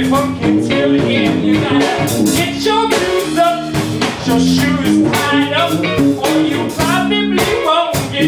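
A singer performing a funky, bluesy song with a band: singing over guitar and a steady drum beat.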